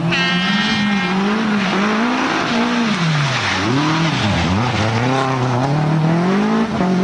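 Toyota Celica GT-Four ST165's turbocharged 2.0-litre four-cylinder engine running hard, its revs rising and falling repeatedly, dropping lowest about four seconds in before climbing again. A high whine sits over it for roughly the first second.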